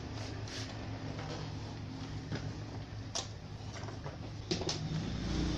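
Scattered light clicks and knocks of a CRT television's plastic chassis and circuit board being handled, the sharpest a little after three seconds in and two more close together near the end, over a steady low hum.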